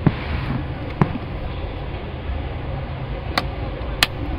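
Several short, sharp plastic clicks over a steady low background rumble. The brightest click comes near the end, as a finger presses on the hinged cover of the rear 220V power socket.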